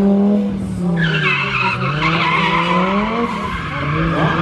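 Rally car engine rising and falling in revs as it brakes and accelerates around a tight roundabout. Tyre squeal starts about a second in.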